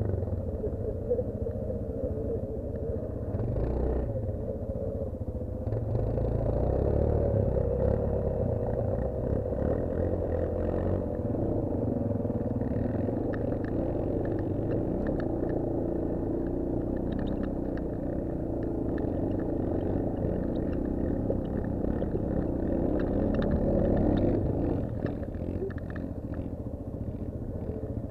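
Honda TRX 400EX quad's single-cylinder four-stroke engine running under load, its pitch rising and falling with the throttle as it works through mud and brush, with scattered knocks and clatter from the rough ride.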